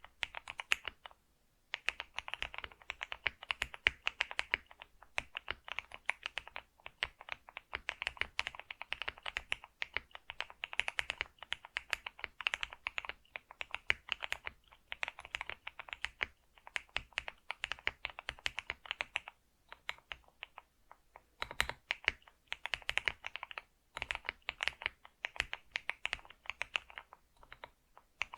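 Computer keyboard being typed on in fast, continuous runs of key clicks. There is a short pause about a second in and another about two-thirds of the way through.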